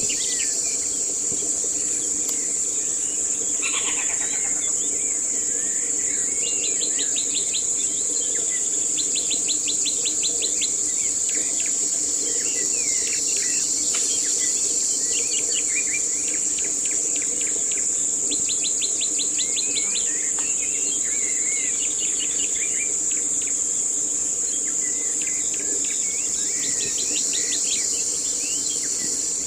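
A steady high-pitched drone of insects, with birds calling over it in varied chirps and several fast trills of rapidly repeated notes. A lower steady hum runs underneath.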